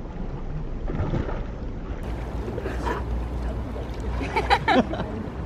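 Lake water splashing as a swimmer moves through it, with wind rumbling on the microphone. Near the end, a dog gives a short, high, wavering whine.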